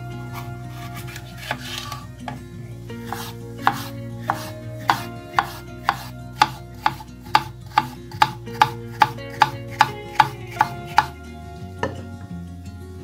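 Kitchen knife slicing a red pepper into thin strips on a wooden cutting board: a run of sharp knocks of the blade striking the board, quickening to about two or three a second and stopping about eleven seconds in. Soft background music plays underneath.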